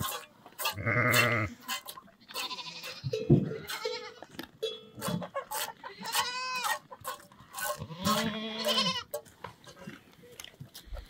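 Goats bleating again and again in quavering calls about a second long, with clinking livestock bells and scattered clicks between the calls.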